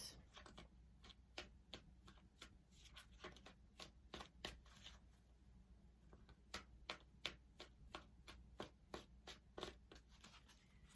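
Tarot cards being shuffled and handled: a faint, irregular run of light flicks and card snaps.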